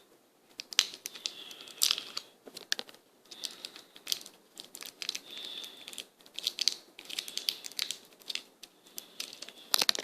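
Scattered crinkling and sharp clicks of a Warheads sour candy wrapper being handled.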